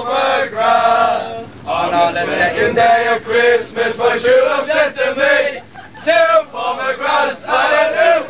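A group of Irish football supporters chanting and singing together in sung phrases with short breaks, inside a tram carriage.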